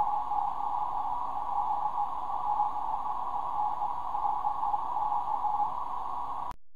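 Receiver hiss squeezed into a narrow band by a CW filter, with a faint, wavering tone near 800 Hz in it: a 10 GHz moonbounce (EME) CW signal, echoed off the Moon, heard through an Icom IC-751 receiver. It cuts off suddenly near the end.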